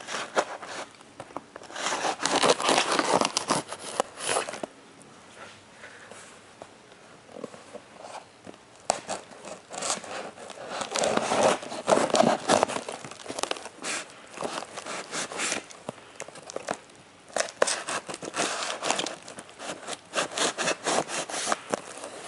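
Hands tearing open and rustling a mailed shipping package: irregular bouts of crinkling, tearing and scraping, with quieter pauses between them.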